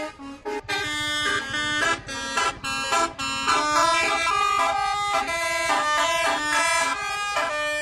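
A bus's multi-tone telolet horn playing a tune of held notes that jump from pitch to pitch, with the bus engine running underneath from about a second in.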